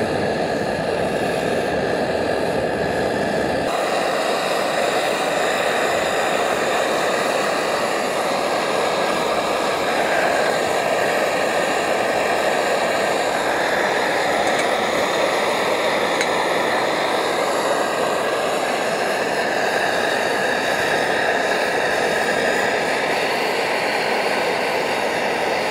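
MSR Dragonfly liquid-fuel camp stove burning at full flame under a pot of boiling water: a loud, steady blaring hiss.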